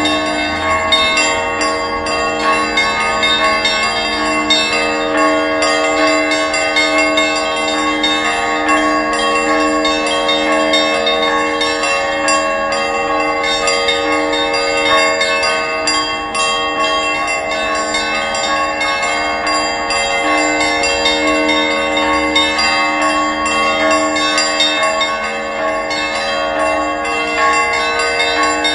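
Several church bells ringing together, struck over and over so that their tones overlap into one continuous, steady peal.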